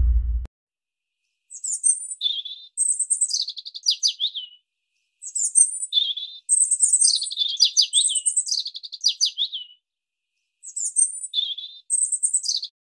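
Songbird singing in quick high chirping phrases, in three groups with dead silence between them. A low rumble fades out in the first half second.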